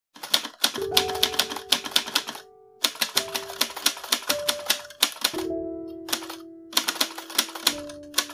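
Typewriter keys clacking in quick runs with short pauses, over music with held notes.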